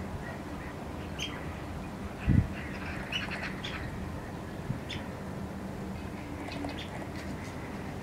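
Birds giving scattered short, sharp calls over a steady low background rumble, with a single low thump a little over two seconds in.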